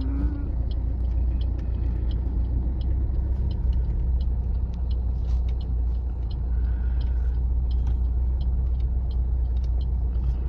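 Moving car heard from inside the cabin: a steady low engine and road-noise drone, with faint light clicks about twice a second.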